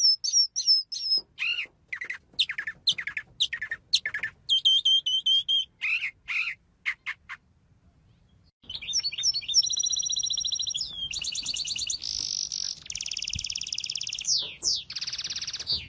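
Small songbirds chirping in short, separate high calls, then, after a brief pause about eight seconds in, a long song of fast high trills, one rapid roll after another.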